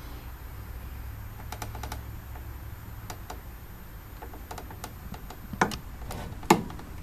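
Small metallic ticks as an Ampro click-type torque wrench is slowly pulled under load, then two sharper clicks, about five and a half and six and a half seconds in. The louder last one is the wrench clicking over. It is set to 240 inch-pounds but releases at about 360 on the reference dial, so it is reading about 120 inch-pounds off.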